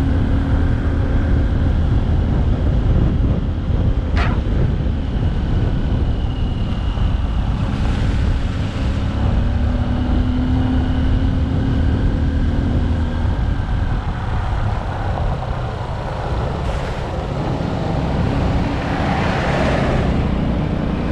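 Motorcycle engine running as the bike rides along, its note coming and going over a steady low rumble of road noise. A single sharp click about four seconds in, and a rising hiss near the end.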